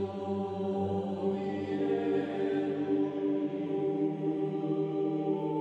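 Background music of slow, sustained chords that shift gradually, with no workshop sounds heard through it.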